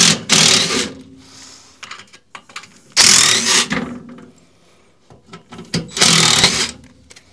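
Power drill running in three short bursts, about three seconds apart, typical of backing out screws to take panelling off a wall.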